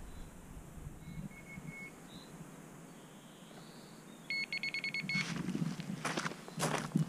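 Electronic carp bite alarm beeping as a rod is set on its bank stick: three short high beeps about a second in, then a rapid run of beeps a little after four seconds. Footsteps near the end.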